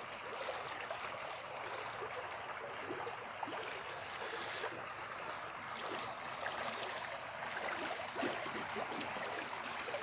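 Small forest creek flowing with a steady rushing, with a few faint crackles of footsteps in the leaf litter.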